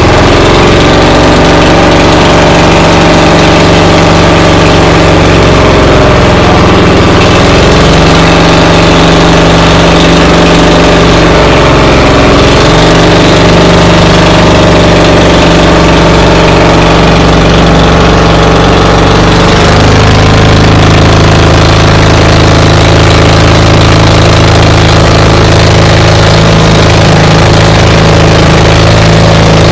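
An engine running loud and close to the microphone, holding a steady note that shifts in pitch a few times as its speed changes.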